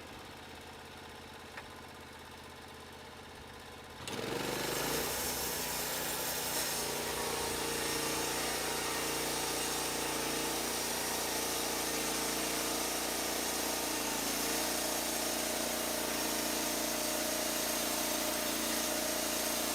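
Portable band sawmill's engine running at low speed, then about four seconds in throttling up with a rising pitch and settling into a steady high-speed run with the band blade turning.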